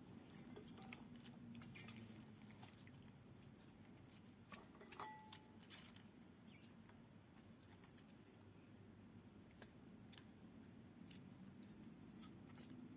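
Near silence: faint room hum with scattered light clicks and ticks, and a brief faint tone about five seconds in.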